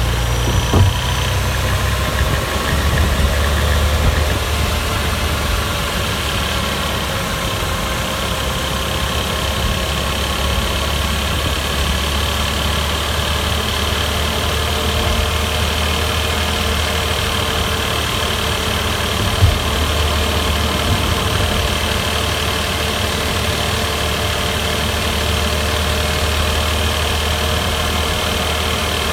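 The 3.2-litre flat-six engine of a Porsche Boxster 986 S runs steadily, its note drifting slowly up and down, over a deep rumble. There is one brief sharp knock about two-thirds of the way through.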